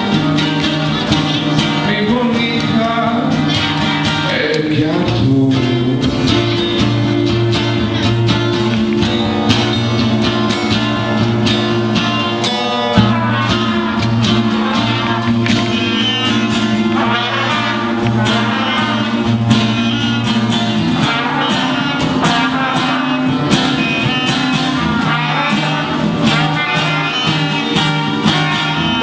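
Music: a song with plucked guitar over sustained low notes.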